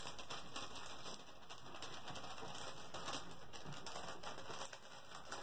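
Hands rubbing and smoothing a clear plastic cover film down onto a sticky diamond painting canvas: a soft, continuous brushing and rustling with light scratchy ticks.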